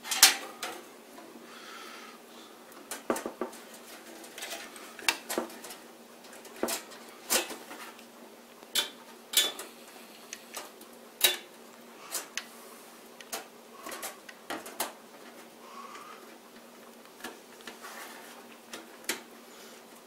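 Irregular sharp metallic clicks and knocks of a motherboard being handled and seated in a cheap sheet-metal PC case, about a dozen and a half scattered taps, the loudest right at the start.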